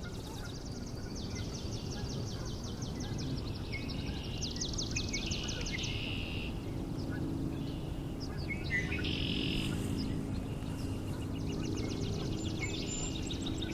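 Spring evening wetland chorus: spring peepers and birds give repeated fast, high trills and peeping calls, over a low background din from Canada geese.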